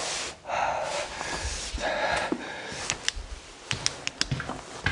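A man breathes out heavily twice, each breath about half a second long, in pain from the headache he has been groaning about. This is followed by a scatter of light clicks and knocks.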